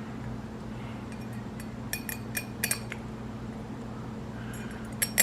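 Light metallic clinks of small carburetor parts and tools being handled during reassembly: a cluster of clinks about two seconds in and a couple more near the end, over a steady low hum.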